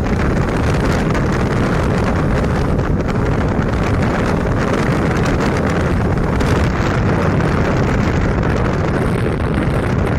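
Loud, steady wind noise buffeting the microphone of a Kanuni Reha 150 scooter at full throttle, with the scooter running underneath.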